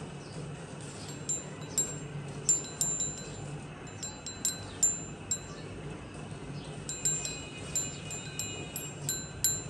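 Small metal bells tinkling in irregular clusters of high, ringing strikes, over a steady low hum.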